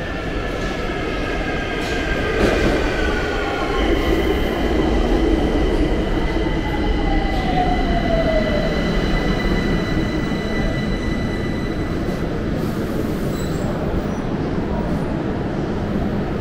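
Metro train pulling into an underground station and braking to a stop. A high whine in several tones falls in pitch as it slows, then holds until about ten seconds in, over a steady rumble of the wheels on the rails.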